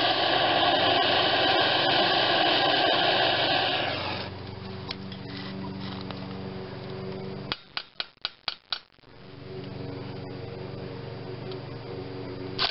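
Handheld gas torch flame hissing loudly for about four seconds while it heats seized starter bolts, then a quieter steady hum. About two-thirds of the way through comes a quick run of short, sharp clicks.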